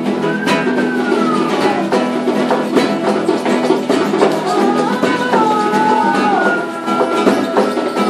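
Several nylon-string acoustic guitars playing together, with slow gliding high tones rising and falling over them, and the crinkling of a plastic bag of newspaper.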